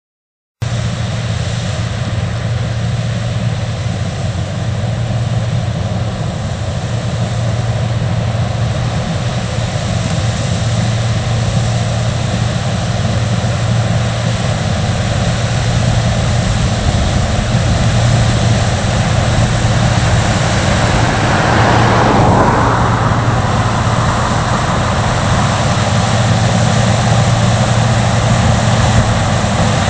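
John Deere 9880i STS combine harvesters working in a corn field: a steady low engine hum under a broad rushing machine noise, cutting in abruptly just after the start, with a brief swell in the middle range about two-thirds of the way through.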